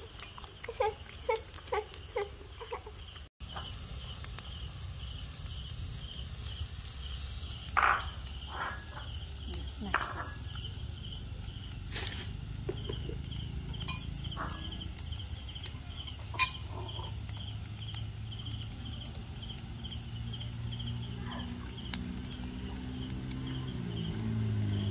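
Insect chirping in a steady rhythm, about three chirps a second, with a few sharp clinks of a spoon and chopsticks against a ceramic bowl.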